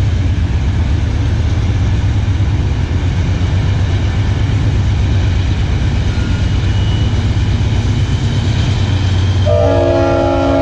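Slow-moving train passing with a steady low rumble. Near the end its horn sounds, a chord of several notes held steady.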